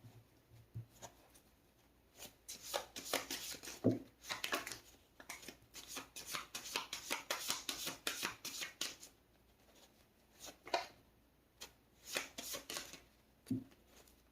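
An oracle card deck being shuffled by hand: a run of quick, papery card flicks and slaps, a pause about two thirds of the way through, then a few more.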